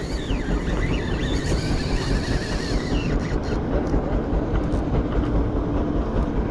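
Steady rumbling noise of wind and sea water against a small boat, with a spinning reel being cranked during a popping retrieve.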